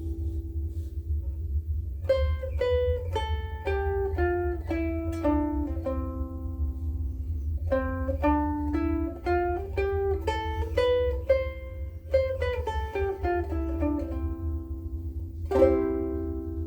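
Blue Wing Ukuleles #3 soprano ukulele with Aquila Bblacks strings, played solo: a chord rings out and fades, then three phrases of single plucked melody notes follow, and a strummed chord rings near the end. A steady low hum sits underneath.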